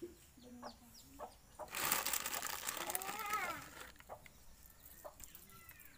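Rooster crowing once, a loud, harsh call of about two seconds that begins about two seconds in and arches in pitch toward its end. Small birds chirp faintly around it.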